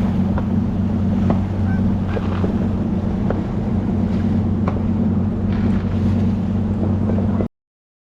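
Boat's outboard motor running with a steady low hum, with a few faint sharp pops of distant fireworks over it. The sound cuts off abruptly near the end.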